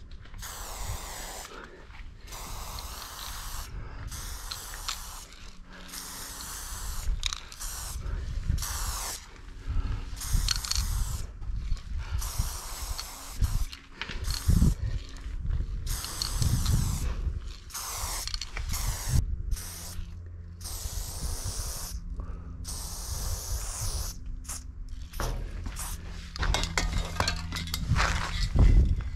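Aerosol spray paint can hissing in many short bursts with brief gaps between strokes as a silver chrome fill is sprayed, over a steady low rumble. A loud knock near the end.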